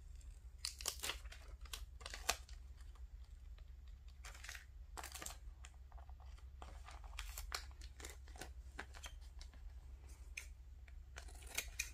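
Paper stickers being peeled from their backing and pressed onto a paper card: short, scattered soft crackles and rustles, over a faint steady low hum.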